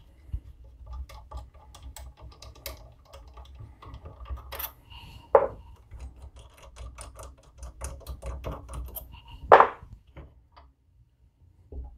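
Rapid light metallic clicks and ticks as thumb screws are unscrewed by hand from a cam bearing installer plate on a motorcycle engine case. Two louder metal knocks stand out, one about five seconds in and the loudest near ten seconds.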